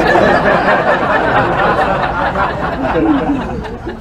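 Canned audience laugh track: a crowd laughing and chattering at once. It starts suddenly and fades out near the end.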